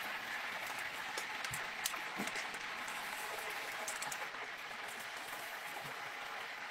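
Hot oil in a large deep-frying cauldron crackling and sizzling steadily, with a few short light clicks of steel tongs against the wire draining rack as whole fried chickens are lifted out.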